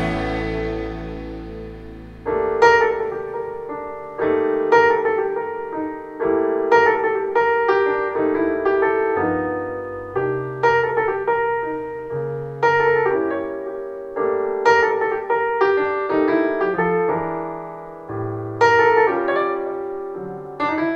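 Jazz piano played back through a pair of Audiolab Symbol two-way bass-reflex tower loudspeakers, recorded in the room. The last chord of a soft-rock track dies away, then the piano comes in about two seconds in, with chords and phrases struck every second or two.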